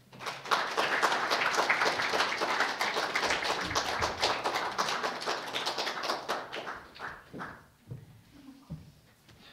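A small audience clapping, a dense patter of many hand claps that starts half a second in and dies away about seven seconds in.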